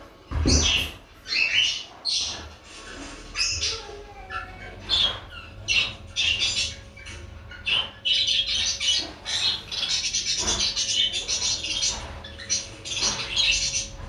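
Budgerigars chirping and chattering in a string of short, high calls, with a denser run of continuous chatter about two-thirds of the way in. A couple of low bumps sound among the calls.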